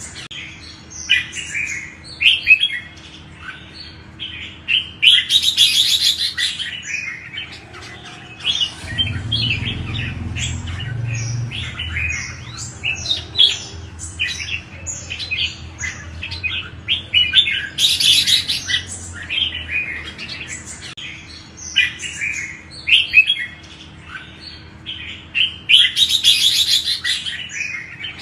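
Red-whiskered bulbul singing: a steady run of short whistled phrases, broken three times by a louder burst of rapid, scratchy high notes.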